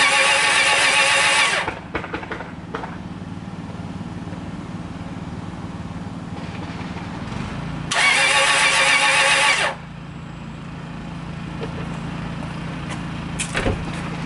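2004 Subaru Legacy Outback's starter cranking the engine without it catching. One crank stops about two seconds in, and a second crank of about two seconds comes near the middle; the engine turns over but does not start. A low steady hum carries on between the cranks.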